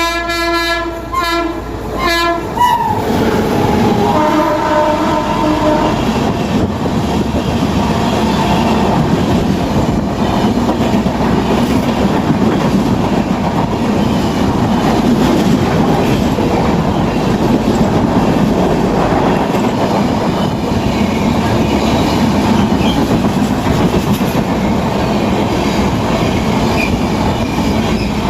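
Horn of an Indian Railways WAP-7 electric locomotive sounding in short blasts, its note dropping lower about three seconds in as it passes and stopping about six seconds in. Then the express's coaches rush past at speed with a steady rumble and clatter of wheels on the rails.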